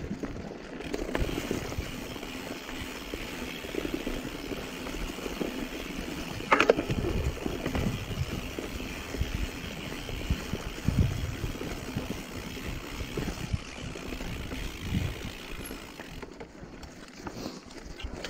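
Mountain bike riding over a dirt forest singletrack: tyres rolling on dirt and leaves, and the bike knocking and rattling over bumps, with one sharp loud knock about six and a half seconds in.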